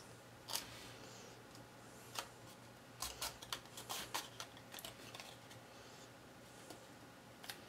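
Light clicks, taps and rustles of cardstock pieces being handled and pressed together at their glued tabs, with a quick run of taps about three to four seconds in.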